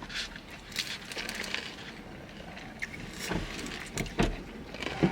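Close-miked eating sounds: chewing and crunching on a taco, with scattered crackly clicks and a few soft knocks from handling the food.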